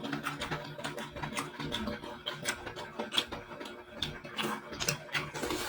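Close-up eating sounds of someone chewing spicy seafood: irregular mouth clicks and smacks, several a second.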